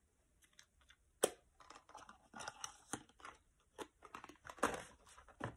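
Hands handling makeup packaging and fabric: irregular crinkling and rustling with scattered clicks, the sharpest a little over a second in.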